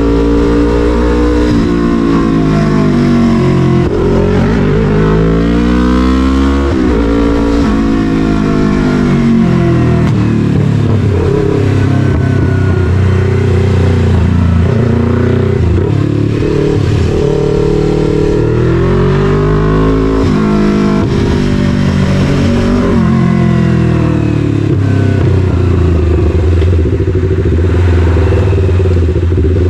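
Yamaha MT-03 parallel-twin motorcycle engine through an SC-Project full CRT carbon exhaust, heard while riding. The engine note climbs and drops again and again as the bike accelerates and backs off.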